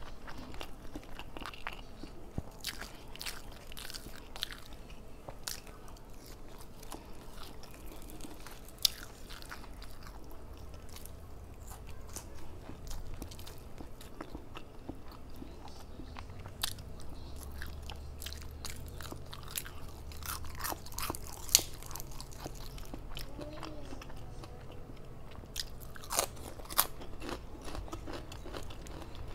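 Close chewing and crunching of fried flounder as it is picked apart by hand and eaten, with scattered sharp crackles and clicks, a few louder ones standing out.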